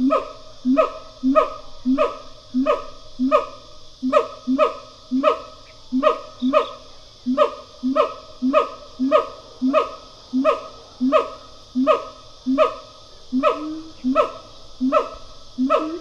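Siamang pair calling in duet: a steady run of short, bark-like hoots repeating nearly twice a second.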